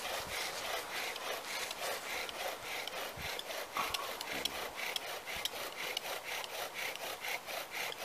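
Bow drill for friction fire-lighting: the wooden spindle grinds and rasps in the hearth board with each push and pull of the bow, a rhythmic scraping at about three strokes a second.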